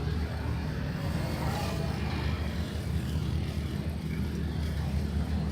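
Busy night-time city street ambience: a steady low rumble of traffic with faint voices mixed in.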